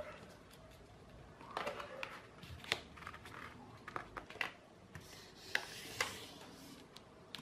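A sheet of A4 paper being folded by hand: rustling and sliding as the hands smooth it, with several sharp crackles as folds are pressed and creased.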